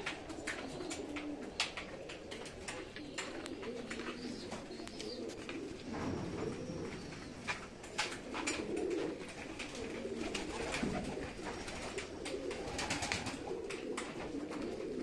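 Pigeons cooing over and over in low, rounded calls, with many short clicks and rustles close by.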